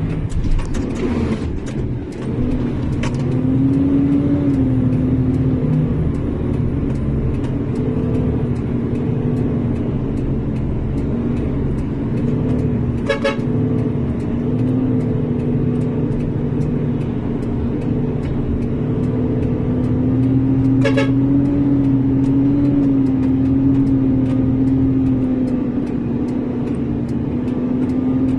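Large truck's engine droning steadily as heard inside the cab while driving, its pitch shifting a little with speed. Two short horn toots come about halfway through and again some eight seconds later.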